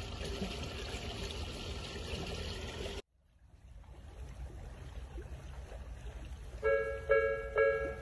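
Steady outdoor background noise until a cut about three seconds in. Then, near the end, a Japanese railway level-crossing alarm starts ringing: an electronic bell of the Nikko type, striking a little over twice a second.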